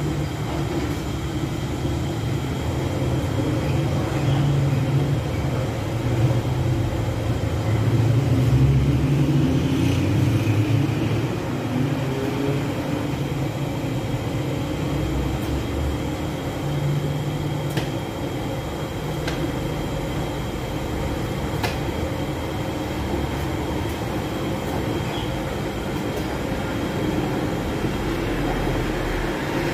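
Steady low rumble of a gas-fired bread oven running, with a few light clicks and taps as flatbreads are handled on its deck.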